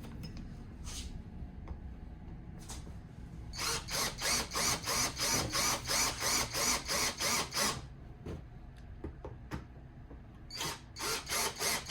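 Cordless power screwdriver driving screws into an RC truck kit, in two runs of rapid, even pulsing at about four pulses a second.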